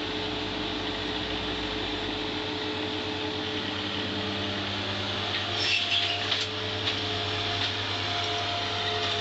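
A vehicle engine running steadily with a constant hum, with a few short clicks and knocks a little past the middle.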